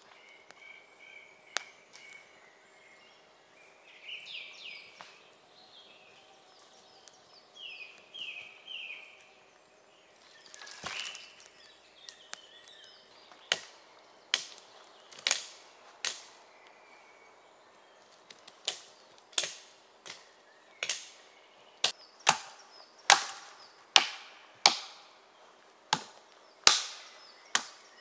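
Small songbird singing in repeated short phrases. From about halfway in, a Gränsfors Bruk Wildlife Hatchet chops into wood with sharp, regular strokes, about one a second.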